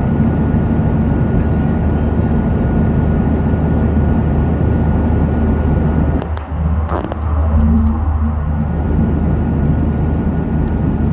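Steady airliner cabin noise in flight, heard from inside the cabin: a loud, even rush of engines and airflow over a low hum, with a faint steady high whine. About six seconds in, the level dips briefly and a few clicks sound.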